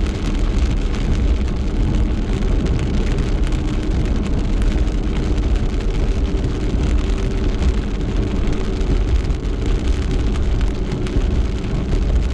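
Rain pelting a car, over the steady low rumble of the car being driven.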